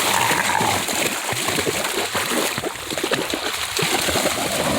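A dog swimming and wading in creek water, with irregular splashing and sloshing.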